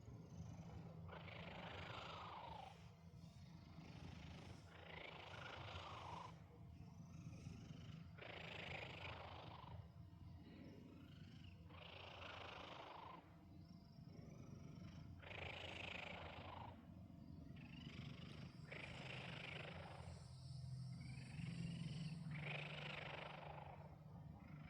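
A domestic cat snore-purring in her sleep: a continuous low purr with a raspy snoring breath about every three and a half seconds, some breaths carrying a falling whistly note.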